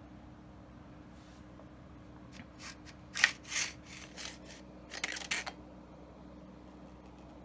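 Shotgun parts being handled during disassembly and cleaning: a run of short, sharp clicks and rattles with one louder click near its start, then after a short pause a second brief run of clicks.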